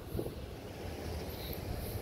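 Chevrolet Silverado pickup truck driving past, a low engine and tyre rumble, with the next car approaching.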